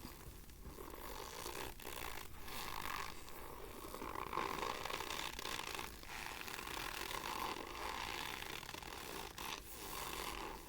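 Argo cornstarch crunching and squeaking as it is worked, in a run of long scraping strokes with a few brief pauses.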